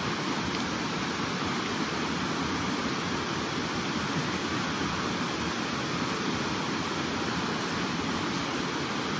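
Steady rushing of river water running over shallow rocky rapids.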